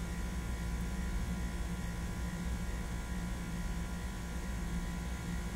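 Steady low electrical hum with a faint even hiss, unchanging throughout; the soldering itself makes no distinct sound.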